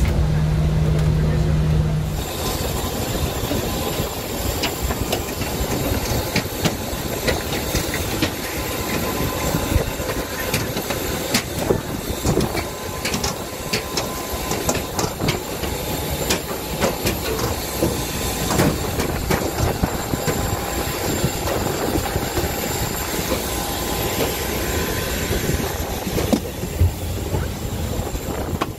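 A bus engine hums steadily for about two seconds. Then comes steady airport apron noise with a thin high whine and many irregular clicks and knocks, which changes near the end.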